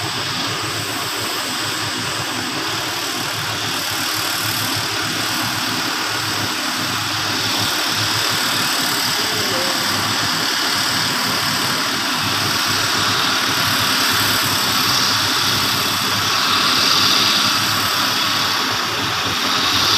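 Heavy diesel engine noise running steadily, growing gradually louder as a loaded logging truck comes down the dirt road toward the microphone.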